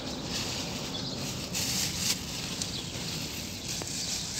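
Thin plastic carrier bag crinkling and rustling in the hands as it is worked open, in short bursts.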